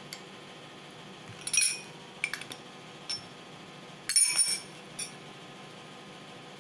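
Steel spoons and small glass bowls clinking as spices are scooped out and added: about five light, ringing clinks, the loudest cluster about four seconds in.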